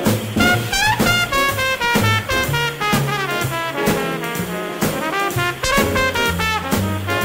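Swing-style jazz music with horns over a bass line and a steady beat, with quick runs of notes.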